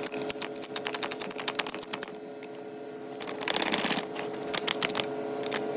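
Rapid metallic clicking in several short runs over a steady machine hum, made while a bent trailer hitch is being worked straight.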